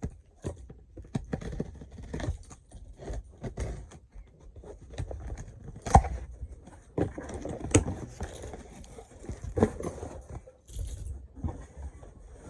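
Keys jangling on a keyring with a small key knife while a cardboard package is cut open and handled, with irregular scrapes and rustles and two sharper knocks about six and eight seconds in.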